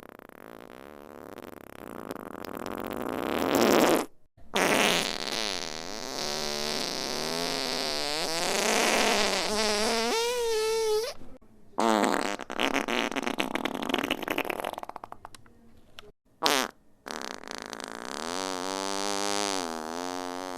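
A run of fart sound effects, about five in a row with short gaps between them. Most are long and drawn out with a wavering, bending pitch; one is crackly and sputtering, and one is very short.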